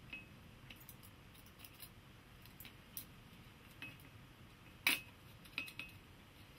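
Metal snips cutting along a thin brass strip: an irregular series of short, sharp snips as the blades close, the loudest a little before five seconds in.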